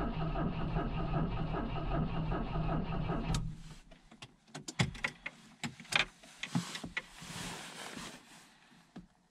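A 1986 Volvo 245's carbureted B23A four-cylinder runs just after a cold start, then cuts out suddenly about three and a half seconds in. Scattered clicks and knocks follow, with a brief soft rushing sound near the end.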